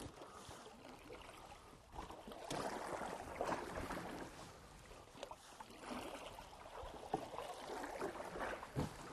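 Canoe paddle swishing and splashing through the water in several separate strokes, a reverse sweep and a cross forward sweep that spin the canoe in place.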